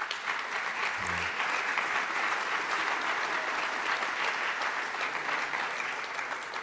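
Audience applauding: a dense, steady clatter of many hands clapping, starting to die down near the end.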